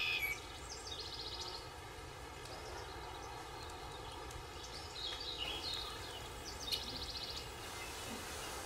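Quiet night-time ambience: a steady low background hiss with short, rapidly pulsed chirping calls coming every second or few.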